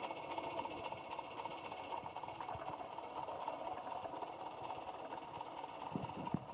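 Steam locomotive exhaust running steadily, with a few short knocks near the end.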